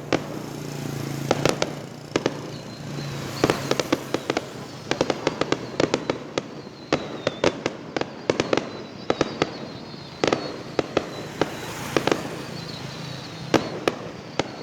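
Fireworks going off: many sharp bangs at uneven intervals, some in quick clusters, with faint whistling between them.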